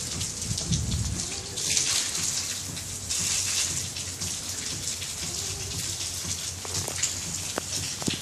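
Water: a steady hiss with many small splashing ticks.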